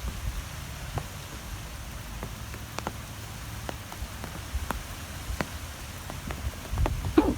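Wind blowing as a steady low rumble, with scattered sharp ticks throughout and one louder knock near the end.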